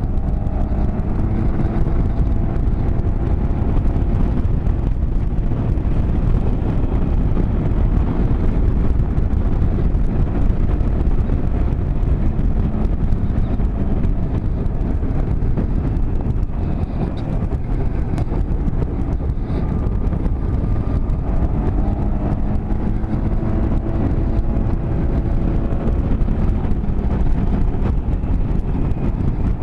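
Small 200 cc single motorcycle engine running under load while climbing, its note rising and falling a little now and then, under a heavy wind rush on the microphone.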